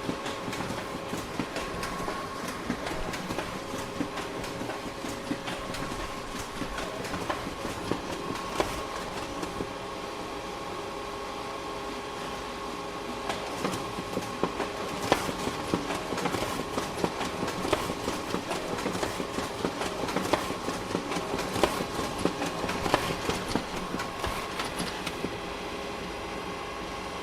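Photocopier running continuously: a steady machine hum with a few held tones, under a busy clatter of clicks and knocks from the paper-handling mechanism. The clicks grow louder and more frequent about halfway through.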